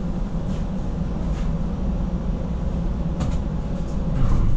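Toronto streetcar riding along, heard from inside the car: a steady low rumble of wheels on rail and traction motors, with a few faint ticks, growing a little louder near the end.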